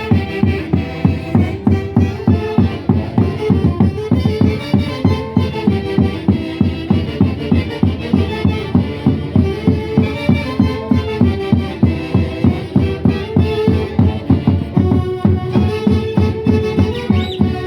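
A band playing a traditional Andean dance tune, with wind instruments over a quick, steady pulsing beat.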